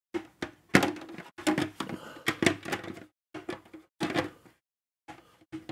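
Hard plastic Darth Vader helmet being handled and fitted on: a run of clicks, knocks and scraping of plastic parts in uneven bursts with short pauses between them.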